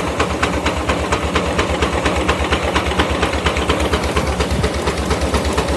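Case portable steam engine running under steam, its exhaust chuffing in a steady, even beat of about six or seven puffs a second.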